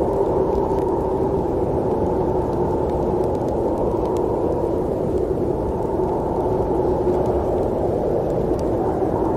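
Snowstorm wind ambience: a steady, low, muffled rushing noise without gusts or breaks.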